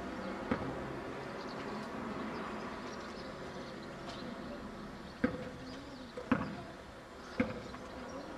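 A basketball bouncing on a hard outdoor court: four sharp bounces with a short ring, one about half a second in and three more about a second apart near the end, over steady background noise.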